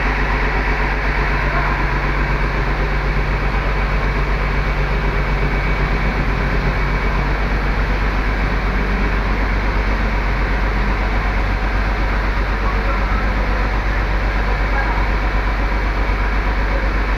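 Bus diesel engine running steadily, heard close to the rear engine compartment, with a deep constant hum under a dense mechanical clatter.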